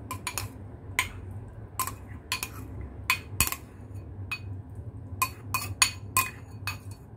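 A plastic spoon tapping and scraping against a ceramic bowl, scraping out a soy sauce and spring onion topping, in a string of short, sharp clinks at uneven spacing, about two or three a second.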